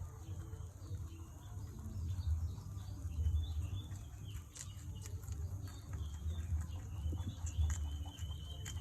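Rabbits eating: scattered short crunchy clicks of chewing and rustling food over a steady low rumble, with a few faint bird chirps near the middle and near the end.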